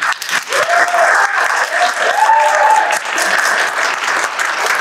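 Audience and panelists applauding, with a couple of voices calling out over the clapping in the first few seconds.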